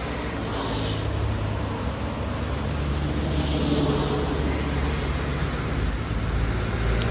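A motor vehicle approaching on the road, its engine hum growing steadily louder, over a constant rushing background.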